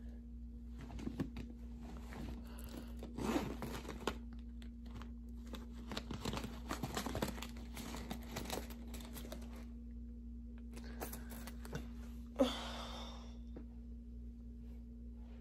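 Rustling and crinkling of things being handled and packed, with scattered small clicks and one sharper knock about twelve seconds in, over a faint steady hum.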